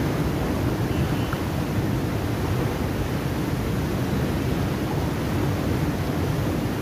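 White water rushing steadily out of a dam's sluice gates and churning past the concrete wall.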